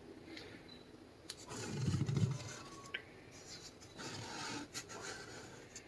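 Faint rubbing and scraping handling noise from a hard 3D-printed glove being turned and shifted, with a muffled low bump about two seconds in.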